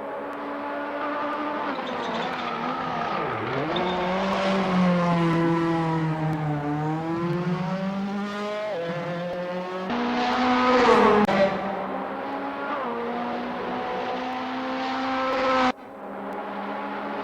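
Racing car engines going by on a circuit, their pitch falling and rising as they brake, change gear and accelerate past, with more than one engine heard at once. Loudest about eleven seconds in, then the sound drops away suddenly shortly before the end and carries on quieter.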